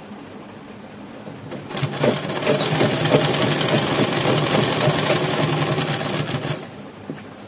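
Sewing machine running for about five seconds as it stitches a seam, starting a couple of seconds in with a rapid, even chatter of needle strokes and stopping near the end.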